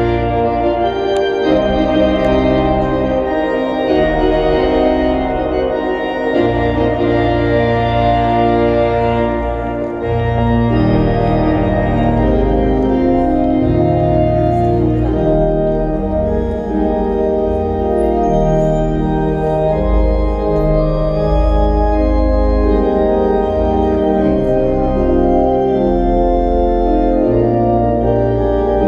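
Kimball pipe organ playing full sustained chords over deep held bass notes, the harmony shifting every second or two.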